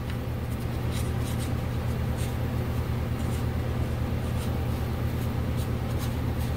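Sandpaper rubbing on the cut end of a brake line tube held in a bench vise, deburring it: short, irregular rasping strokes over a steady low hum.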